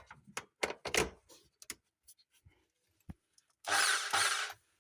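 A few light clicks and knocks, then near the end a small power tool runs in one short burst of about a second, as a newly wired plug is tested.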